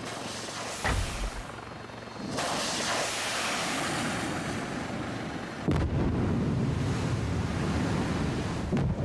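Sea Skua anti-ship missile fired from a helicopter: a thump, then the rushing hiss of its rocket motor, and about six seconds in a sudden deep rumble as the hit throws up a wall of sea spray.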